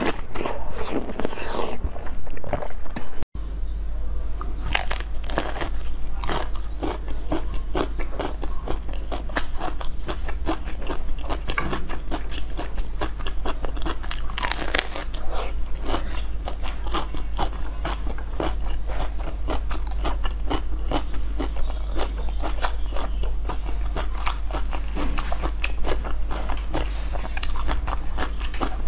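Close-miked crunchy biting and chewing of frozen treats: first a piece of orange fruit, then, after a cut about three seconds in, a green-coated frozen dessert, with dense irregular crackling crunches. A steady low hum runs under the second part.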